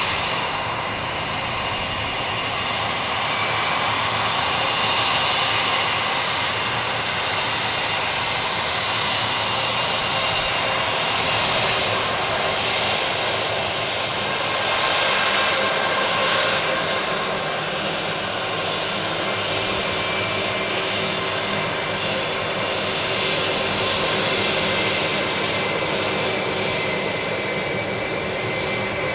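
Airbus A320-family airliner's twin jet engines running at taxi power: a steady, even whine over a broad roar.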